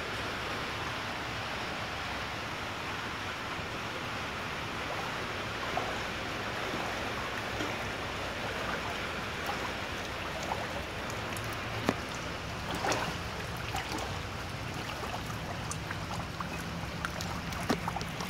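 Shallow floodwater swishing and sloshing in a steady rush as someone wades through it, with a few sharp knocks and clicks in the second half.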